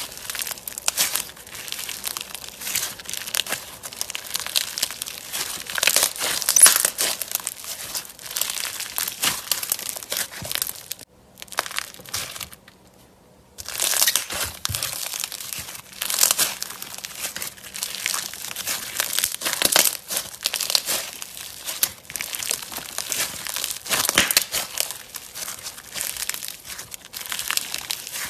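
Hands squeezing, pressing and stretching white bead-filled slime, the beads giving a dense crackle of small pops, with a pause of about two seconds just before the middle.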